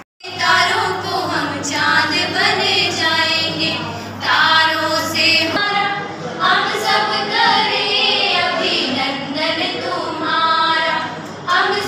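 A small group of young women singing a song together in chorus, with long held notes.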